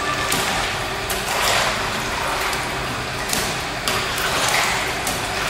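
Pool water splashing and sloshing as children move about in a swimming pool, with a few louder splashes.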